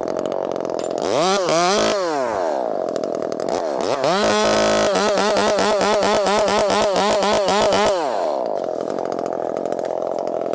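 Chainsaw idling, revving up briefly about a second in, then revving again near four seconds and running at high speed with a fast-wavering pitch for about four seconds, as when cutting wood, before dropping back to idle.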